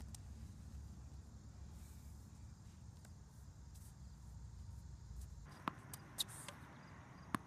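Faint outdoor ambience with a low wind rumble. After about five and a half seconds come three short sharp pops, the loudest as a tennis racket strikes the ball.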